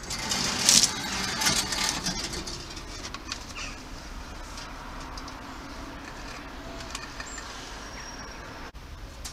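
Rustling and knocking close to the microphone as food is handled and set beside a bird-feeding dish, loudest in the first two seconds. After that comes a steady outdoor background with a few faint, short bird chirps near the end.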